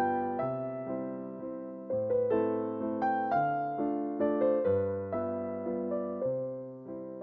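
Slow, gentle piano music: sustained chords with struck notes that fade away, and a new bass note about every second and a half.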